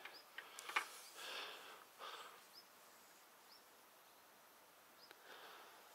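Quiet waterside ambience with a few faint, short, high bird chirps. Near the start there are a couple of soft clicks and brief rustles from handling the fishing rod and reel.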